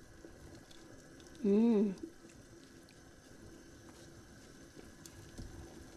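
Fish soup being ladled from a pot into a bowl: faint splashes of broth and light clicks of the ladle. A short hummed vocal sound comes about a second and a half in.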